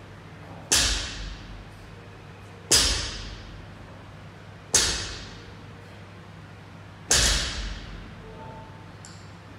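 Loaded barbell touching down on the floor with each deadlift rep: four sharp impacts about two seconds apart, each trailing off over about half a second.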